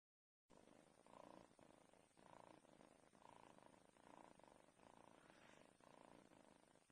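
A cat purring softly, in a regular swell and ebb a little under once a second, starting abruptly about half a second in.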